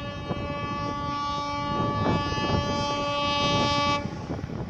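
Bangladesh Railway diesel locomotive 6017 sounding its horn in one long blast, which cuts off suddenly about four seconds in, over the low rumble of the approaching train.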